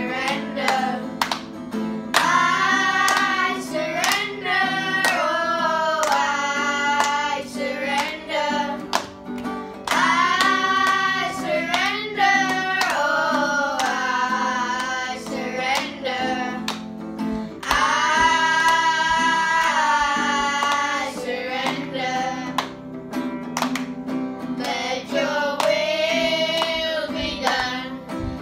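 Children singing together in unison to a strummed acoustic guitar.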